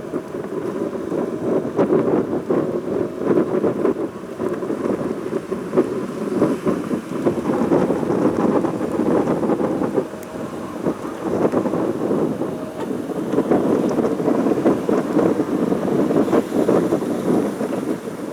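Strong wind buffeting the microphone: a loud, gusting rumble that swells and eases every few seconds.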